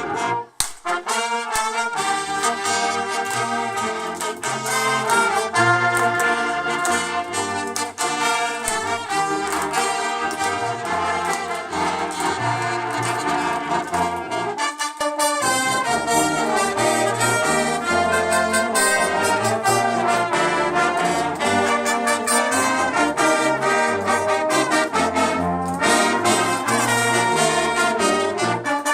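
High school brass ensemble playing a holiday tune, with short breaks between phrases about half a second in and again about halfway through.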